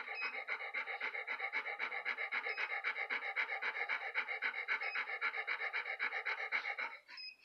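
Dog panting fast and evenly through a basket muzzle, about six breaths a second, stopping about seven seconds in. A short faint beep sounds every two seconds or so.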